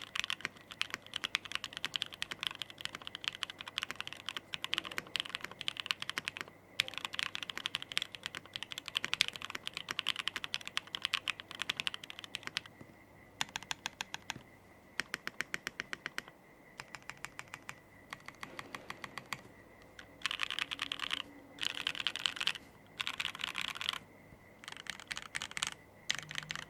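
Custom mechanical keyboard being typed on: a Gok 7V with lubed JWK Alpaca linear switches on a polycarbonate plate, with plate foam, a tape-modded PCB and GMK Nautilus keycaps. Fast, steady typing with a brief pause, then slower single keystrokes around the middle, then quick bursts of typing separated by short gaps near the end.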